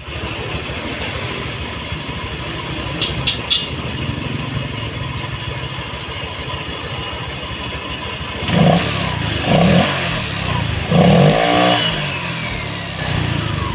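Honda Vario 125 scooter's single-cylinder engine idling, then revved three times in short blips, with a strange noise from the front left of the CVT case that the mechanic suspects comes from a worn slider piece, or else the rollers or roller housing. A few sharp clicks sound once early on.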